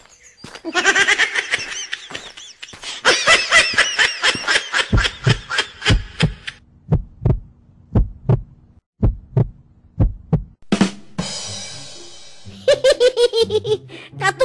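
Cartoon heartbeat sound effect, as heard through the doctor's stethoscope: an even run of low thuds, about two a second, lasting around five seconds after a stretch of music. Giggling laughter comes in near the end.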